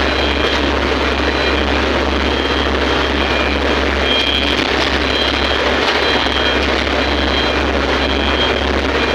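Excavator's diesel engine running steadily under load, with a thin high whine that comes and goes every second or so.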